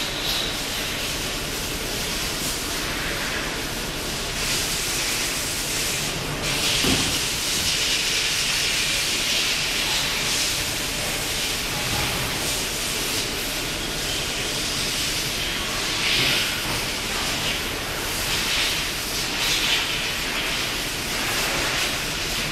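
Machine-shop noise from a running CNC and robot cell: a steady hiss with several louder swells of hissing.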